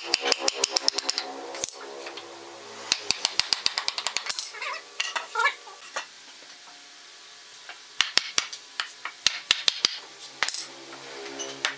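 Hammer knocking wooden mortise-and-tenon joints together, in three quick runs of sharp strikes about seven a second with short pauses between.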